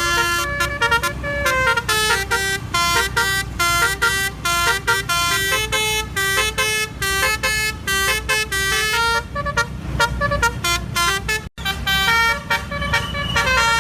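Telolet horn, the multi-tone musical horn fitted to Indonesian trucks and buses, playing a quick melody of short stepping notes, with a brief break about three-quarters of the way through.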